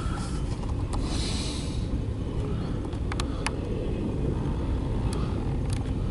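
CSX intermodal freight train rolling past a grade crossing: a steady low rumble with a few sharp clicks of wheels on the rail.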